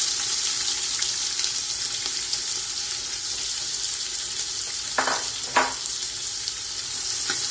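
Diced onions sizzling in hot oil just after being added to the pan, a loud, steady hiss. Two short knocks sound about five seconds in.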